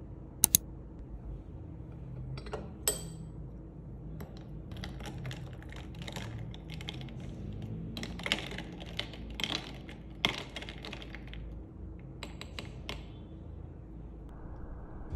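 Ice cubes clinking against a drinking glass as a ceramic spoon stirs an iced latte: a few sharp clinks near the start, then a quick, uneven run of light clinks and taps through the middle that thins out near the end.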